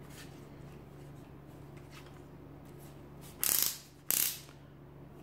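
Ratcheting clicks from the front collar of a Parkside PABS 16 B3 cordless drill being twisted by hand, in two quick bursts about half a second apart near the end.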